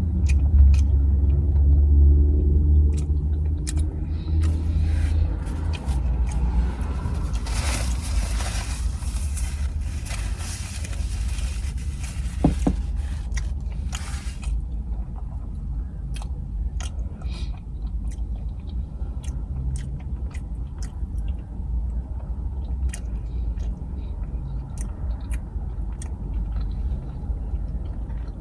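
Close-miked chewing and biting of a fried fish sandwich, with scattered crunches and mouth clicks, over a steady low rumble. A denser, noisier stretch of crunching runs from about a quarter to halfway through.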